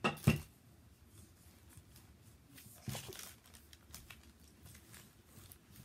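A wooden rolling pin knocks sharply once just after the start, then rolls over a slice of bread with faint rubbing and light taps.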